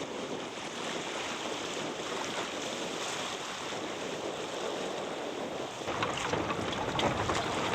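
Steady rush of wind and water, with wind buffeting the microphone. About six seconds in it grows louder and fuller, with a few light knocks.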